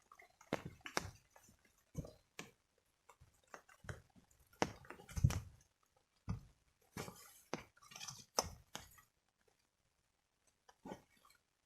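Irregular small knocks, clicks and clinks, one to a few at a time with short pauses, the loudest a dull thud about five seconds in; it falls quiet for about two seconds near the end.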